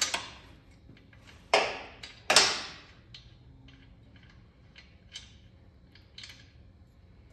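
Metal hand tools and loose hardware: two sharp metallic clanks about one and a half and two and a half seconds in, then scattered light ticks as a nut and washer are taken off a bolt to be reseated.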